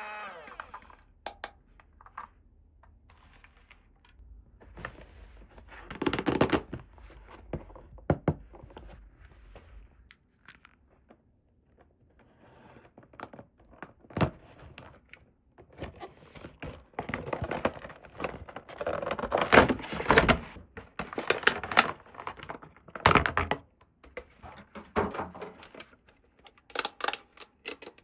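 Small plastic toy pieces being handled, clicked together and set down, with light rustling of packaging: irregular taps and clicks, busiest in the second half.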